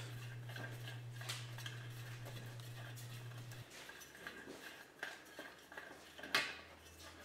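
Faint metal clinks and taps as the sheet-metal heat shield of an exhaust manifold and catalytic converter assembly is handled, with a sharper click about six seconds in.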